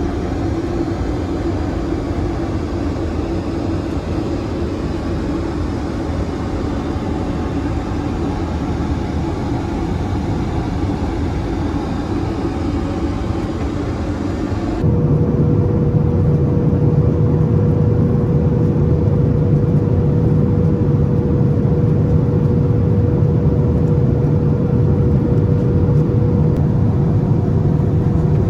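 Steady drone of a Boeing 787-9 cabin in flight, engine and airflow noise. About halfway through it changes abruptly to a louder, deeper drone with a steady hum.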